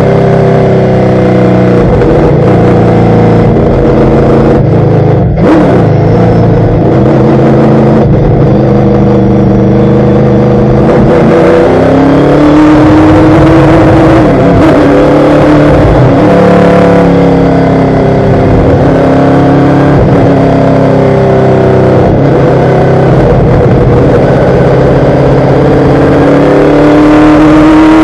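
Stock race car's engine heard loud from inside the cockpit, running under load on track. Its pitch sinks and climbs as the car lifts and accelerates through the corners, and it climbs again near the end as the car speeds up.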